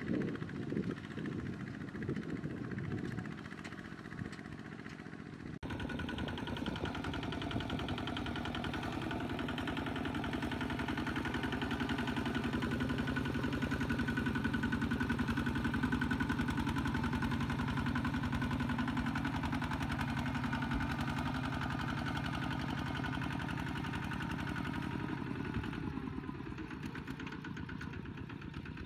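Single-cylinder diesel engine of a Kubota walking tractor running steadily under load with an even, rapid firing beat as it pulls a loaded trailer through muddy paddy stubble. About five seconds in, the sound jumps to a closer, louder engine.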